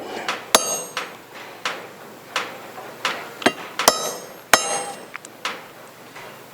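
Series of hammer blows on metal, cutting a spoon-forged arrowhead free from the rest of the spoon. The strikes come roughly every half second to second, and several ring sharply.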